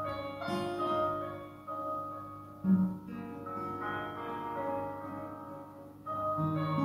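Steel-string acoustic guitar with a capo, chords picked note by note and left ringing, including an Fmaj7 chord. New notes come in at uneven intervals, and each fades before the next.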